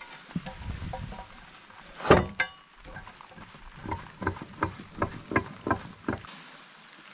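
Portable sawmill's log-handling gear being worked: a sharp metallic clank about two seconds in, then a run of about eight evenly spaced knocks, roughly three a second, as the toe board is set to level a tapered log before the first cut.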